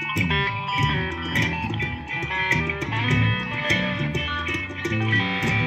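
Live band playing an instrumental passage, electric guitar over bass.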